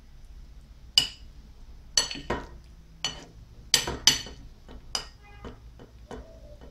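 Kitchen utensils and dishes clinking: about nine sharp clinks, some with a brief ring, starting about a second in.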